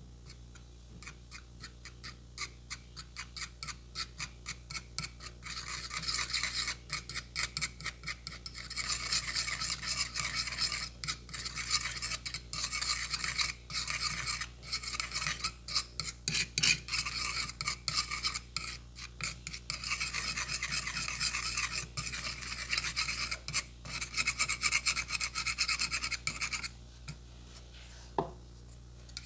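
Fast, rasping strokes of hands rubbing over skin in a barber's massage, several a second, faint at first and growing louder, then stopping near the end, followed by one light knock.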